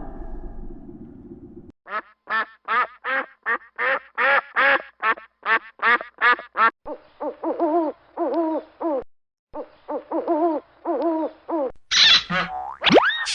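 A duck quacking in two quick runs of short calls, about three a second. A falling call fades out at the start, and a cartoon sound effect with a rising whistle begins near the end.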